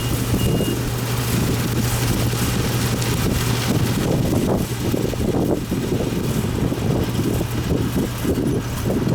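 Yanmar farm machine's engine running steadily with a low hum, its reversing beeper sounding a last short beep just at the start.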